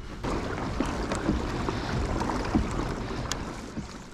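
Water sloshing and splashing against a kayak's hull as it moves, with light wind on the microphone; it eases off near the end.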